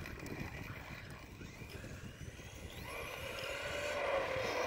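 Volcano EPX Pro Brushless Edition RC truck's electric motor whining on a speed pass, growing louder as it comes closer over the last couple of seconds.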